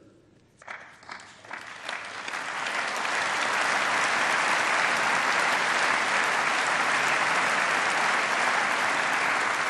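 Large audience applauding: a few scattered claps about a second in, swelling into steady full applause by about three seconds and starting to ease off near the end.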